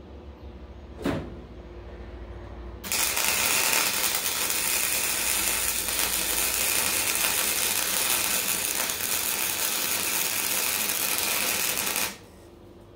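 Electric arc welder running a weld bead: a steady crackling sizzle that starts abruptly about three seconds in and cuts off suddenly near the end, after a single click about a second in.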